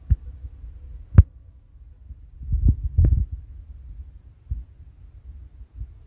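A low rumble with several dull thumps: the loudest about a second in, two more close together around the middle, and lighter ones near the start and near the end.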